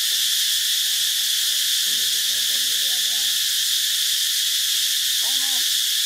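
Loud, steady chorus of forest insects, a high even drone. Faint short calls come through underneath twice, around the middle and again near the end.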